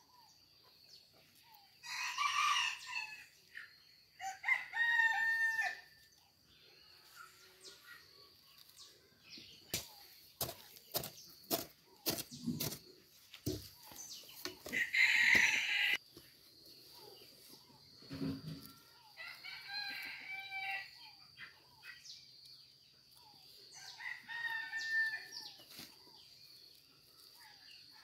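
A rooster crowing repeatedly, about five calls, the loudest about halfway through. Between the calls come a run of sharp knocks and a dull thud as a hoe chops into the soil.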